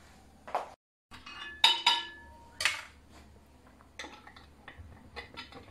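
Lids being put on and screwed onto glass jars of dried tomatoes in oil: a few sharp clinks, the loudest about one and a half seconds in with a short ringing after it, then lighter ticks and clicks.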